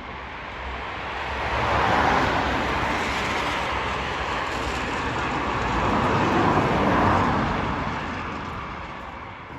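Vehicle noise, a rushing hiss with a low rumble, swelling to a peak about two seconds in, dipping, rising again around seven seconds and fading near the end.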